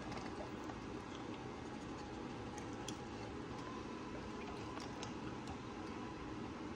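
Steady low room noise with a few faint, short clicks.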